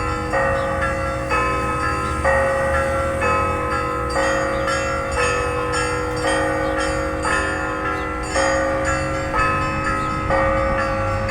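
Church bells ringing, struck about once a second in changing combinations of pitches, each stroke ringing on into the next.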